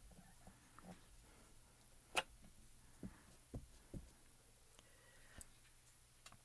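Quiet room with small handling sounds of a clear acrylic stamp block being pressed onto cardstock and lifted: one sharp click about two seconds in, three soft knocks over the next two seconds, and a faint tick near the end.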